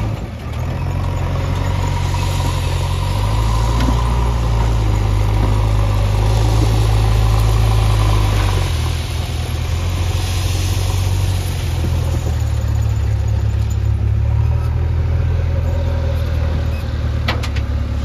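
Heavy diesel engine running loudly. Its speed rises about three seconds in, drops about nine seconds in, and picks up again a few seconds later.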